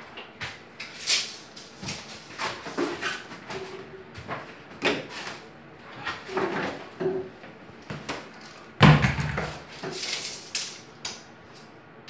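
Irregular knocks, scrapes and clatter of hand work at a stone bathtub surround, with one loud thump about nine seconds in.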